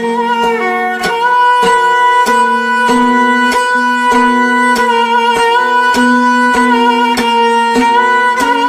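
Tarawangsa music: a bowed two-string tarawangsa fiddle holds long notes over the steadily repeating plucked strings of a jentreng zither.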